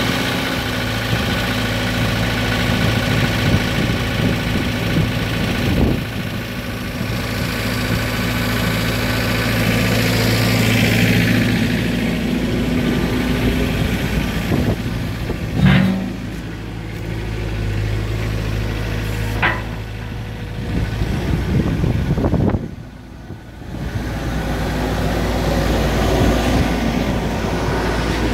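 Terex TC35 mini excavator's diesel engine idling steadily, heard close up. There are two short sharp clicks about 16 and 19 seconds in, and the engine dips briefly in level a few seconds before the end.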